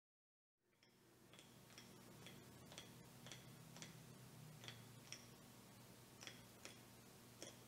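Near silence: faint room hum with about a dozen soft, sharp clicks at uneven intervals.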